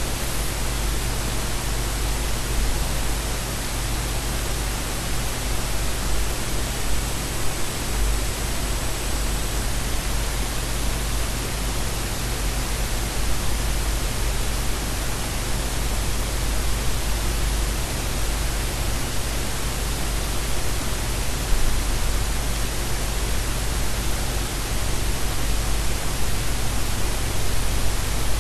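Steady, unbroken hiss of noise spread across all pitches, with a deep rumble underneath. A faint high whine sits over it and stops about ten seconds in.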